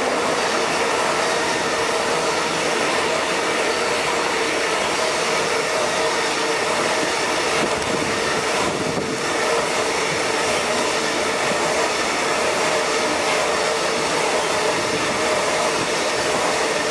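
Freight train of flat wagons loaded with tank containers rolling past, a steady rush of wheels on rail with a faint held whine.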